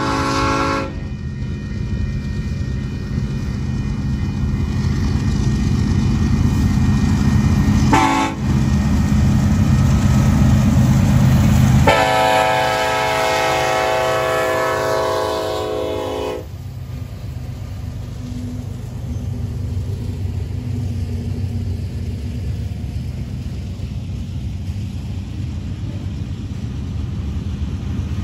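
Union Pacific 1982, an SD70ACe diesel locomotive, leads a freight train past. Its air horn ends a blast about a second in, gives a short toot around eight seconds, and blows again for about four seconds as the locomotives pass, over the diesel engine rumble. After that only the steady rumble of the freight cars rolling by on the rails remains.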